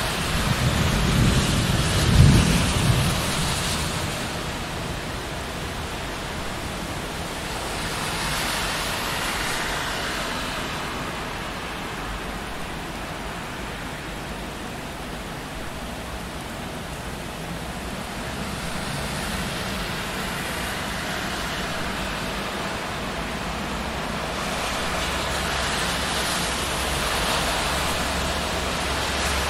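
Steady rain hiss with a low rumble of thunder early on, loudest about two seconds in. Twice the hiss swells and fades as cars pass on the wet street.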